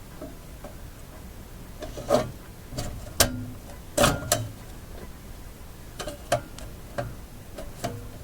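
Irregular light clicks and knocks of metal parts being handled on a vintage tube radio's chassis, the sharpest about two, three and four seconds in.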